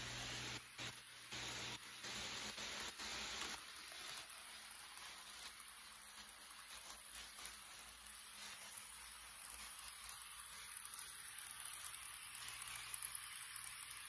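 HO-scale model train running on sectional track: a Rivarossi E.402B electric locomotive and its passenger cars make a steady, hissing rattle of wheels on rails. The sound grows louder and more uneven near the end as the train comes close.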